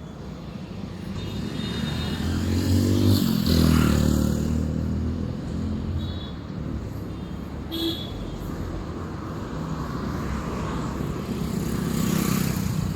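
Street traffic: motor vehicles and motorcycles running past, one engine growing louder and fading a few seconds in, with a short horn toot a little past the middle.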